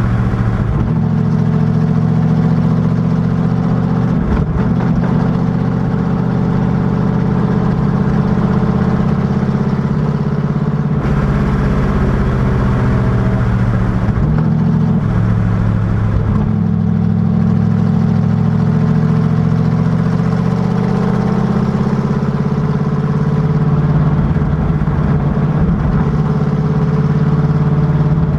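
Factory Five Cobra Daytona Coupé's V8 engine running hard and steadily on a race track, its note breaking briefly a few times.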